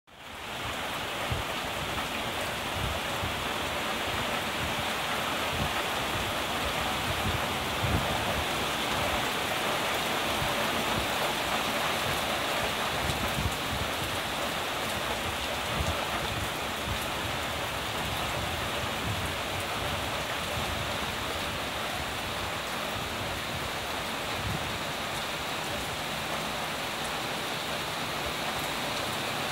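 Drizzle falling steadily: an even hiss of rain with scattered small drop ticks.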